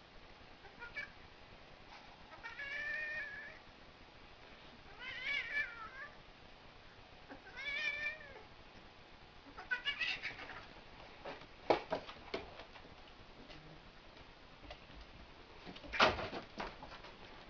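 A cat yowling while fighting a bear cub: four drawn-out, wavering cries a couple of seconds apart. These are followed by a few sharp knocks and a louder thump near the end.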